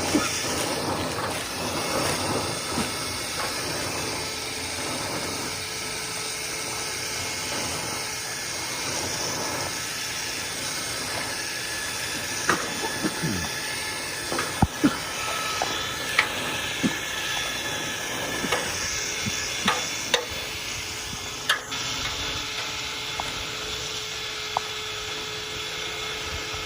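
Steady rushing hiss of air moving through dryer vent ductwork during cleaning. Sharp knocks and ticks are scattered through the middle of it.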